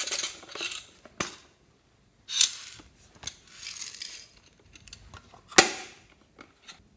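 Small plastic container handled and shaken, its sprinkles rattling inside and spilling out, in several short bursts with sharp plastic clicks between; the loudest click comes near the end.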